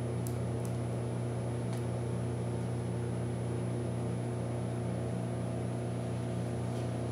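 DryLam LPP4513 foil laminator's roller drive motor and foil rewinder motor running together with a steady hum, winding foil onto an empty core. A few faint ticks in the first two seconds.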